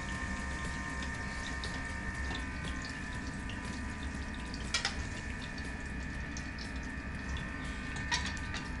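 Pumpkin balls deep-frying in hot oil: a steady sizzle full of small crackles. Two sharper clicks come about halfway through and near the end.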